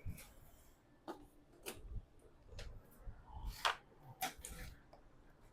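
Irregular clicks and knocks of plastic parts being handled as a portable oxygen machine is taken apart and its battery pack removed, with about half a dozen sharp taps, the loudest about three and a half seconds in.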